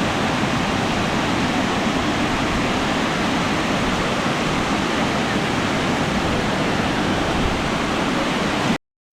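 Mingo Falls, a tall waterfall, with water pouring down in a steady, even rush. It cuts off suddenly near the end.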